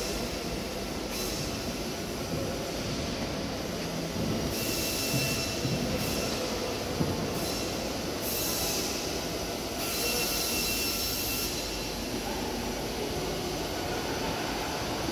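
Steady mechanical noise: a low rumble under a hiss, with a brighter high hiss and faint whistling tones that come and go three times.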